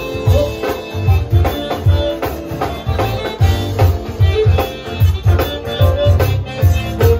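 Live zydeco band playing an instrumental passage through PA speakers: accordion, guitar and drum kit over a steady, driving beat.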